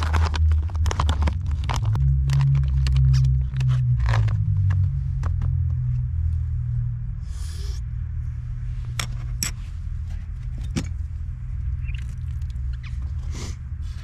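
A car engine's low rumble that revs up in pitch about two seconds in and settles back after about four seconds, with a spoon clicking and scraping in a food pouch over it.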